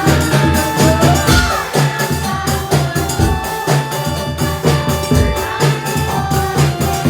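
Live jaranan (Javanese horse-dance) music: drums and percussion beating a steady, driving rhythm under long held melody notes.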